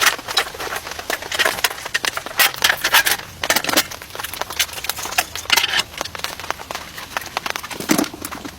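Heavy rain drops striking a surface close to the microphone, heard as many irregular sharp taps and clicks.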